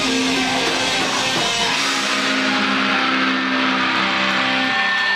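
Live rock band playing electric guitars with drums. About two seconds in the low end drops away and held notes ring on, and a steady high tone comes in near the end.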